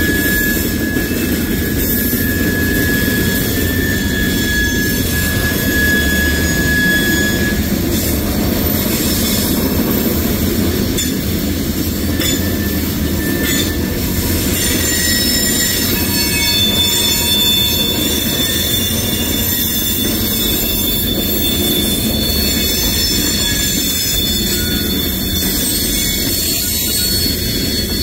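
Freight train of covered hoppers and tank cars rolling past with a steady, loud rumble of wheels on rail. High-pitched wheel squeal rides on top: one steady tone for about the first seven seconds, then several thin, higher squeals from about halfway through.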